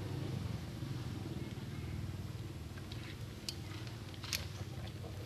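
Steady low motor hum, like a vehicle engine running nearby, with a few short sharp clicks in the last couple of seconds.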